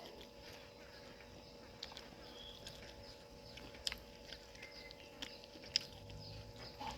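Faint chewing while eating noodle soup, with a few short sharp clicks spread through it over a steady low hum.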